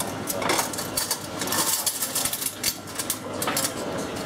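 Crockery and cutlery clinking repeatedly in a sharp, irregular run of small clicks.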